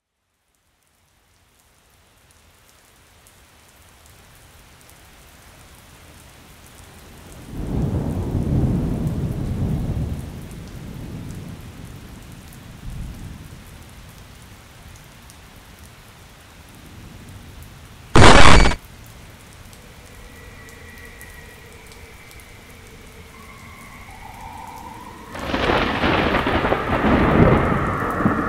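Steady rain with rolls of thunder, one about a quarter of the way in and a longer one near the end. About two-thirds of the way in, a sudden, very loud burst of noise lasts half a second and cuts off abruptly. Faint steady tones sound over the last third.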